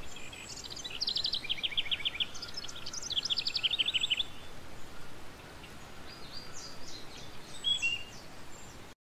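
Small birds chirping: two quick trills of rapid repeated high notes, then fainter scattered chirps near the end, over a steady hiss. The sound cuts off abruptly just before the end.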